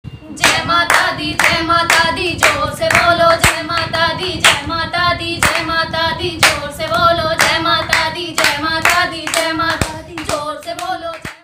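Women singing a devotional jagrata song together, clapping their hands in time about twice a second.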